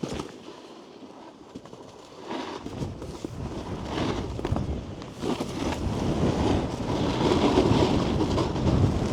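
Snowboard sliding and scraping over snow, a rough rumbling hiss that grows louder from about two seconds in and stays loud to the end.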